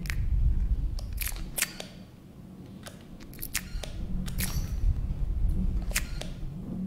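Sound-art mix of irregular sharp clicks and crackles over a low rumble that swells, fades about two seconds in and swells again, with a steady low hum beneath.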